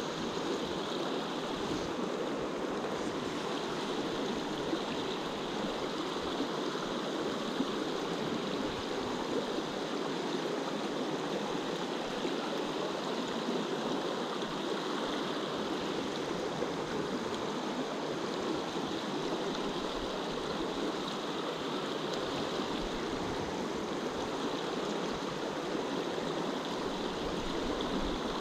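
Shallow rocky stream rushing over riffles: a steady, even rush of flowing water.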